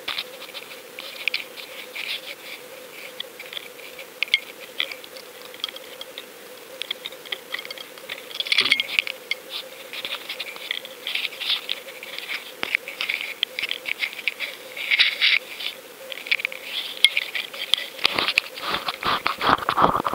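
Handling noise picked up through the sealed housing of a GoFish underwater camera as it is lifted from the water and handled: irregular scratching, scraping and light tapping over a faint steady hum. The knocks grow denser and louder near the end as a hand grips the camera.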